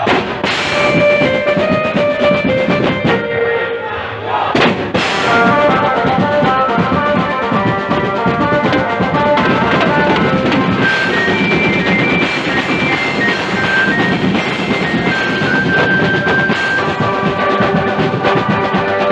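Procession band music: drummers beating a set of snare drums and a cymbal at a fast, steady beat, with a melody line of held notes above the drums.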